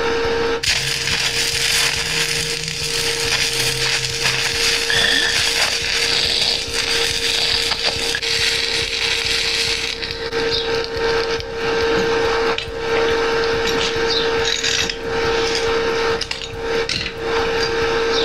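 Stick (MMA) arc welding on galvanised steel with a Fronius inverter welder: a steady crackling, hissing arc over a constant whine, with the zinc coating burning off and giving the arc an odd sound. About ten seconds in the crackle thins and breaks up, stopping and restarting several times as the rod is worked.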